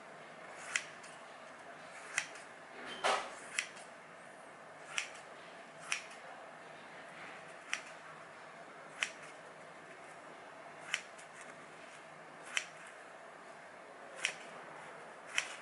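Shears snipping into a sheet of paper: about a dozen separate short, crisp snips, roughly one to two seconds apart, with one longer cut about three seconds in. It is a paper cutting test of the shears' edge.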